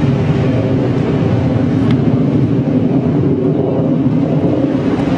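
Steady, loud rumbling roar of an HAL Tejas fighter jet's single GE F404 turbofan engine heard from the ground as the aircraft dives overhead.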